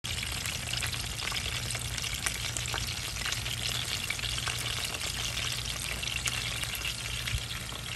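Whole pompano frying in shallow oil in a pan: steady sizzling with many fine crackles and small pops, over a low steady hum.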